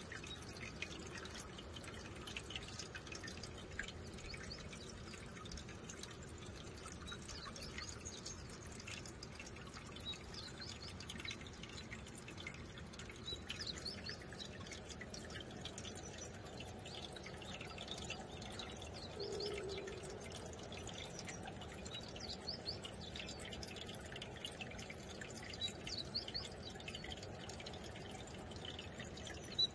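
Shallow stream water trickling over rock, with many small drips and plops scattered throughout.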